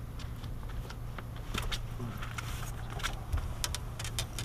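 Scattered light clicks and clinks of handling as a small bass is worked free of a topwater lure hooked in its gill, starting about a second and a half in, over a steady low hum.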